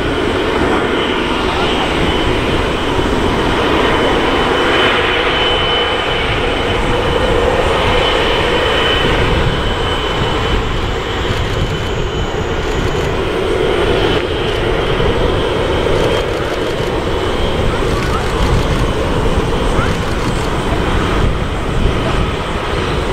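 Boeing 777-200ER taxiing, its jet engines running steadily at low power: a constant rush of engine noise with a thin, steady high whine.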